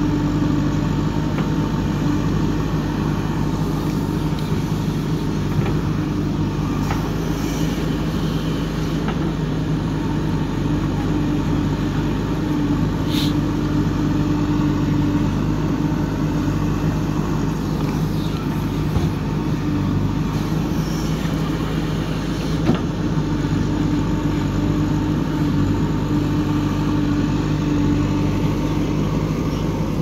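JCB 3DX backhoe loader's diesel engine running steadily under load as the backhoe digs and loads soil. A few sharp knocks stand out, the sharpest about halfway through.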